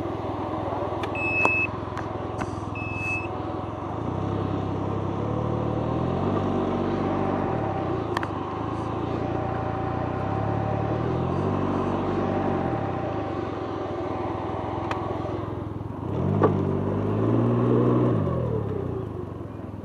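Can-Am Ryker three-wheeler's engine running, rising in pitch and easing back three times as it pulls away and slows. Two short electronic beeps sound near the start.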